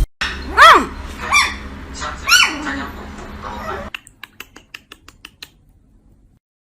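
Three short, high-pitched animal calls, each rising and then falling in pitch, followed by a quick run of light clicks.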